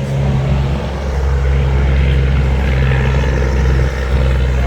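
A steady, loud low drone of a running engine, holding one pitch with no clear change.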